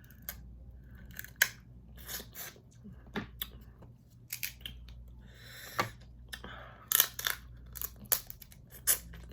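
Crab and lobster shells being cracked and pulled apart by hand: an irregular series of sharp snaps and clicks with a short stretch of wet tearing and rustling about halfway through.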